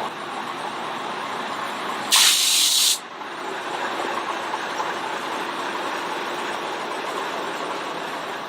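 Steady running noise of a heritage steam railway train heard from on board, broken about two seconds in by a loud hiss of steam lasting under a second.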